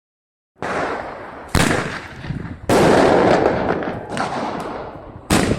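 New Year's fireworks salute: aerial shells bursting in a rapid volley. It starts sharply about half a second in, and loud bangs repeat every second or two, each trailing off in a rumble.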